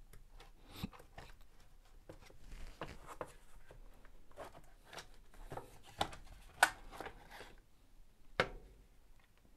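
Plastic housing of a Makita DX01 dust extraction unit being pried apart by hand: a string of light clicks and creaks, with a few sharper snaps in the second half.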